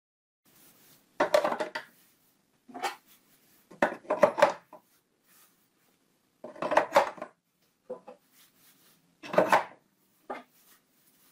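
Large steel outside micrometers being set one after another into the slots of a wooden micrometer case, each one a short clatter of metal knocking against wood, about six in all.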